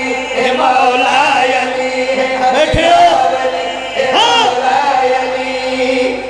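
Men chanting a devotional poem together into microphones, in long held melodic lines.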